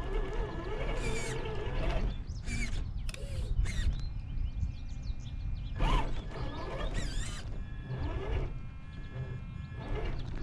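Traxxas TRX-4 RC crawler's electric motor and geared drivetrain working in repeated bursts of throttle as it crawls over rough ground, with a gear whine and mechanical clatter.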